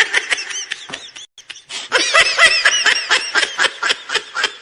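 High-pitched giggling laughter, a meme sound effect: a rapid run of short laughs, a brief pause, then a longer run that trails off.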